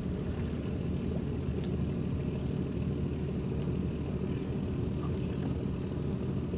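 A boat engine running steadily out of sight on the river, a low rumble.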